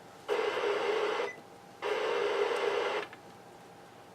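Radio static from a Uniden Bearcat BCT-7 scanner's speaker: two bursts of hiss, each about a second long, with faint hiss between and after them.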